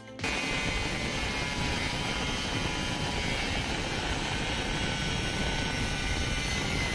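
Black+Decker G720 820 W 4-inch angle grinder running at full speed, a steady high whine over loud motor noise that starts suddenly just after the start.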